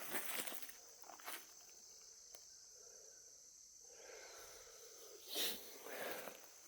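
Footsteps rustling through brush and dry leaves: a few scattered swishes, the loudest about five seconds in. Under them runs a steady, high insect drone.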